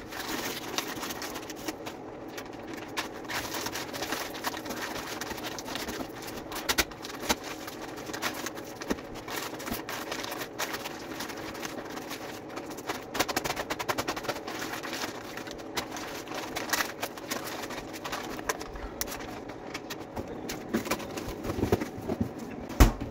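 Kitchen clatter from cooking: dishes and utensils clicking and knocking at irregular intervals over a steady hum, with a sharper knock near the end.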